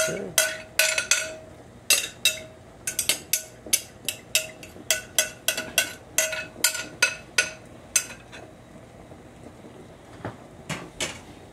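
A metal spoon tapping and scraping against a glass measuring bowl to knock crushed berries out into a pot, about two or three ringing clinks a second. The taps stop about eight seconds in, with a few fainter knocks near the end.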